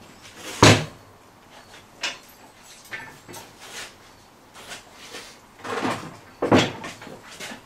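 Workshop handling knocks: a cordless drill set down on scaffold boards and metal sash clamps handled on a clamping bench. One hard knock about half a second in, scattered lighter clicks, then a few more clunks near the end.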